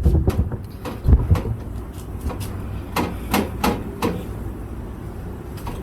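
A handful of sharp knocks and taps from hand work on a Jeep Liberty's radiator mounting while the radiator is being removed. They cluster near the start, about a second in, and between three and four seconds in.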